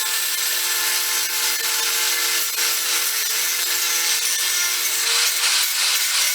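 Power tool with a grinding wheel running steadily against metal, grinding the burrs off freshly cut edges of the engine case.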